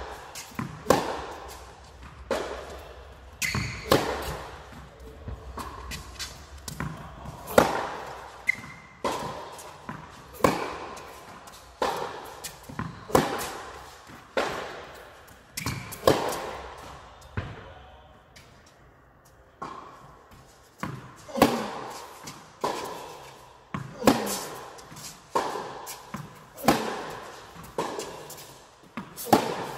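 Tennis rally in a large indoor hall: racket strikes on the ball and ball bounces, sharp echoing pops about every second or so, with a brief lull a little past halfway.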